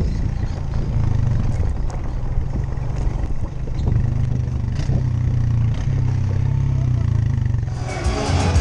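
Truck engine running with a steady low drone that rises and falls a little, heard from the open cargo bed while riding, with light rattling of the load. Music comes in near the end.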